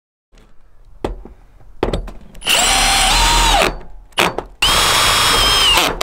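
Cordless drill driving screws through a stovepipe roof boot's flange into a metal roof: a couple of knocks as the drill is set in place, then two runs of motor whine of just over a second each, the whine dropping in pitch as each run ends.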